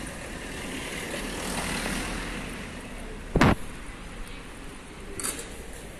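Street traffic with a vehicle passing close, its noise swelling and fading in the first two seconds, then one sharp, loud bang about halfway through, and a few faint clicks near the end.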